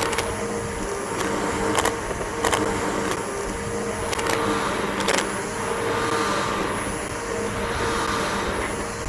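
Bissell BigGreen PowerForce upright vacuum cleaner running steadily over grass, with about five sharp clicks in the first five seconds.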